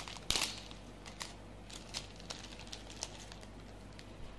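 Handmade jewellery being handled: faint crinkling and scattered small clicks, with one louder crinkle just after the start.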